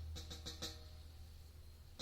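Drum music played through a loudspeaker and picked up by a phone about a metre away, faint: a deep bass tone dies away while a quick run of light drum hits sounds in the first second.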